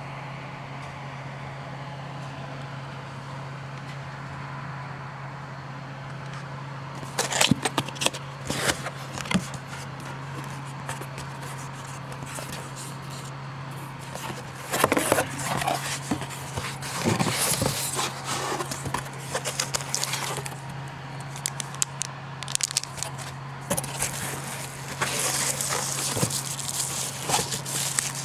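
A steady low hum, then from about seven seconds in, a product box being unpacked by hand: cardboard scraping and plastic wrapping crinkling in irregular clicks and rustles.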